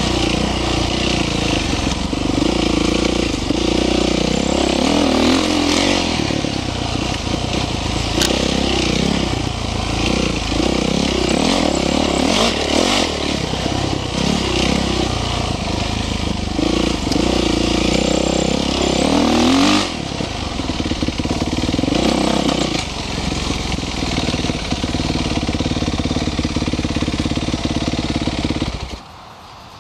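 Dirt bike engine running while riding a dirt trail, its revs rising and falling again and again with throttle and shifts. The engine eases off about two-thirds of the way through and stops abruptly near the end.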